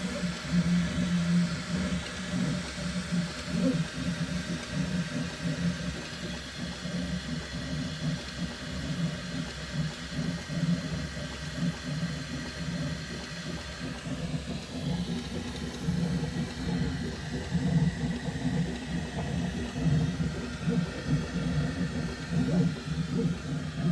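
Bambu Lab X1 Carbon 3D printer running its first layer: the motors give a low, uneven hum that swells and falls every second or two. This is the strange noise the owner hears each time the bed moves up and down for z-hop.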